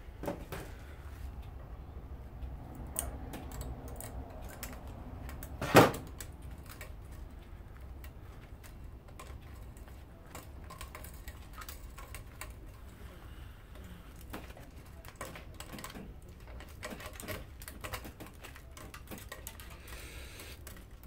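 Scattered light clicks and taps of metal parts and tools being worked on an electric lawnmower motor during a teardown, with one sharp knock about six seconds in.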